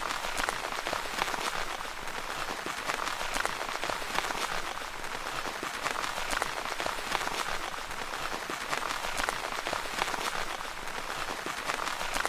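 Steady rain pattering on a tent's fabric, a continuous hiss with many close individual drop taps.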